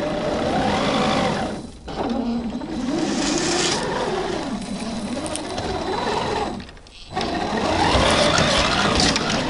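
Electric motor and geared drivetrain of a 1/10-scale RC crawler whining as it crawls over rough dirt, the pitch rising and falling with the throttle. It cuts out briefly twice, about two seconds in and again about seven seconds in.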